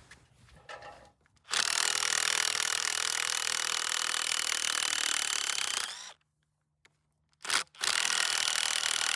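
Loud steady power-tool sawing noise that starts suddenly, cuts off abruptly about six seconds in, and after a short burst starts again near the end.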